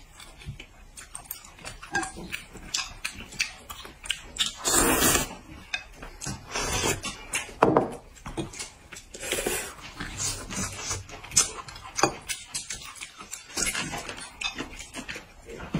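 Close-up mukbang eating sounds: sour-and-spicy sweet-potato noodles being slurped and chewed, with many short wet smacks and clicks. The loudest and longest slurps come about five and nine seconds in.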